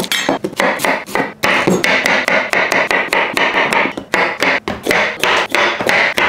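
Chef's knife chopping vegetables on a wooden cutting board: a quick run of knife strikes against the board.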